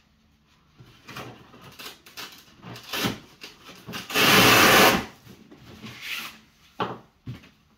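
Packing being handled in a large shipping crate: rubbing and knocks against the foam and crate, with one loud tearing noise lasting nearly a second about four seconds in as a strap across the packing is pulled, and a sharp knock near the end.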